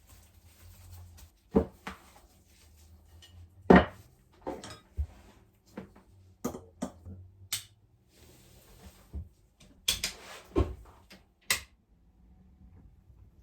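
Small hard objects being handled, making irregular sharp clinks and knocks, the loudest about four seconds in.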